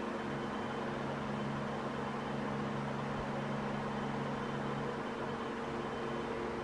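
Steady mechanical hum with an even hiss, holding several fixed low tones at a constant level: a machine such as a fan or heater running in the workshop.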